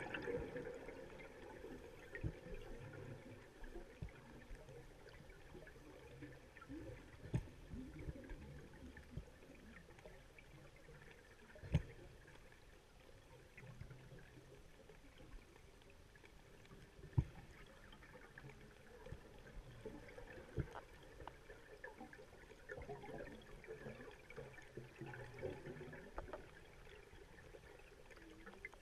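Quiet underwater ambience picked up by a submerged camera: a faint low water hiss with scattered sharp clicks and pops a few seconds apart. A louder wash of noise fades away in the first second or two.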